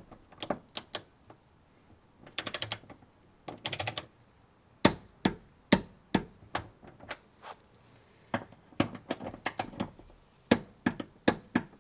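Click-type torque wrench tightening seat-mount bolts to 27 foot-pounds. There are quick runs of ratchet clicks about two and three and a half seconds in, then scattered single sharp clicks and knocks.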